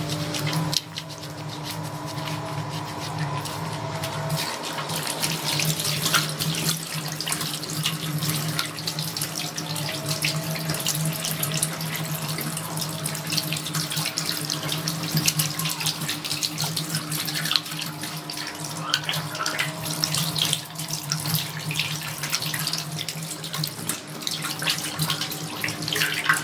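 Tap water running into a sink while hands are washed under it, splashing irregularly, with a steady low hum underneath.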